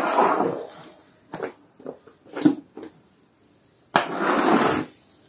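Floor squeegee pushing soapy water and foam across a rough wet floor: a wet scraping swish at the start and another, starting sharply, about four seconds in, with a few small knocks and splashes between.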